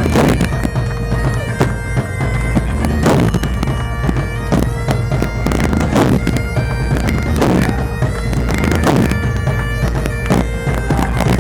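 Live Scottish highland bagpipes playing a tune over their steady drone, with heavy drum strokes landing about every second and a half, amplified through PA speakers. The recording is loud and distorted, with a boomy bass from the speakers overloading the microphone.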